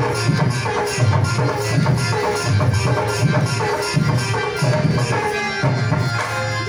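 Loud dance music with a steady, heavy drum beat and a melody over it, played through a DJ sound system's speakers.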